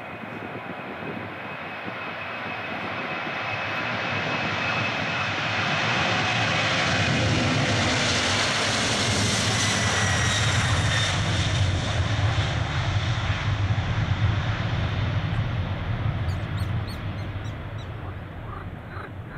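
Boeing 747-400's four General Electric CF6-80C2 turbofans at takeoff thrust as the jet accelerates down the runway: a deep rumble with a high fan whine that builds, is loudest about halfway through, and then fades. As the aircraft passes, the whine drops in pitch, and the sound dies away while it rotates for liftoff near the end.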